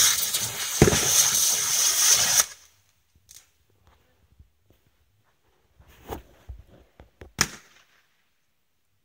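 Borracho No 6 ground firework hissing as it sprays sparks, with a pop about a second in; it cuts off suddenly about two and a half seconds in. A few faint knocks and rustles follow near the end.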